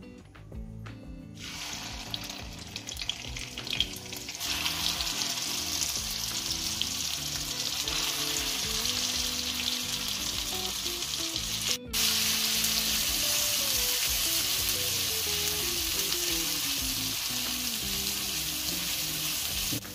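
Masala paste sizzling and frying in hot ghee and oil in a kadhai as it is stirred. The sizzle starts about a second and a half in, grows louder a few seconds later, and cuts out for a moment a little past halfway before carrying on.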